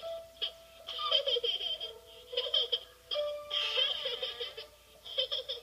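A small cartoon kitten giggling in about four bursts of rapid, high laughter over light background music.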